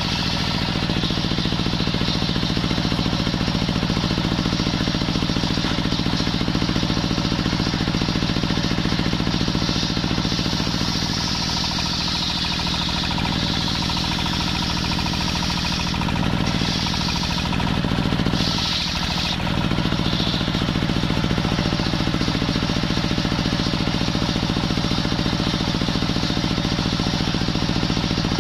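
Belt-driven table circular saw, powered by a stationary engine running steadily, ripping a jackfruit log lengthwise; the engine's steady pulse sits under the high cutting noise of the blade, which wavers about halfway through as the log is pushed on.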